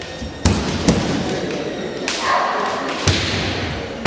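Kendo bout: three sharp impacts of bamboo shinai strikes and stamping feet on a wooden gym floor, two close together early and one about three seconds in, with a short shout between them.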